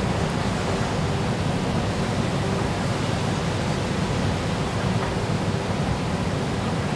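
Steady rushing background noise of an open-air MRT station platform with no train present, with no distinct events.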